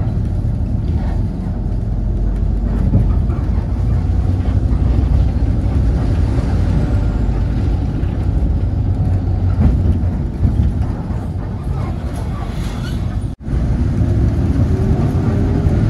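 Cabin noise of a 2011 city bus under way: a steady, deep engine and drivetrain rumble, from an engine the uploader finds somewhat rough and noisy. The sound cuts out for an instant near the end, and a faint rising whine follows as the bus picks up speed.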